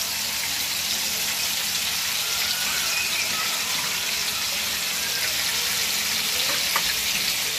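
Masala-coated chicken pieces frying in hot oil in a pan: a steady sizzle, with a few faint thin squeaks near the middle.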